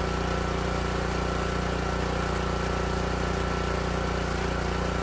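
Small engine of the well-jetting pump running steadily at constant speed, driving water down the jet pipe while the well is being drilled.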